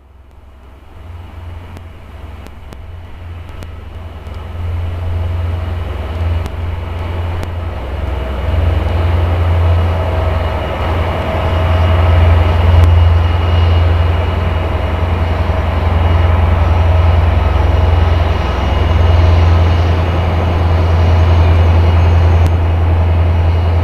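SNCF CC 72100-series diesel locomotive's Pielstick engine running with a deep, steady hum and steady higher whining tones, growing louder over the first dozen seconds and then holding steady.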